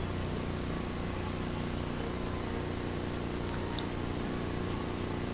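Steady low electrical hum with an even hiss over it and nothing else: the background noise floor of an old tape recording.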